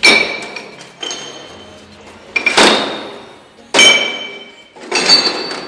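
Sharp metal-on-metal strikes on parts of a dismantled Farmtrac 55 tractor gearbox, about five of them roughly a second apart, each ringing briefly.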